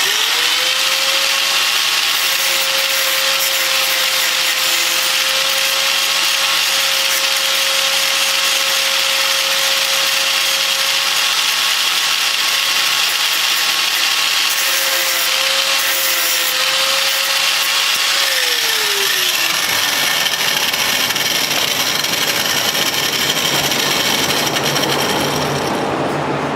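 Electric grinder starting up and grinding steel, a steady motor whine under harsh grinding noise. About 18 seconds in, the whine drops in pitch as the motor slows, while the grinding noise goes on.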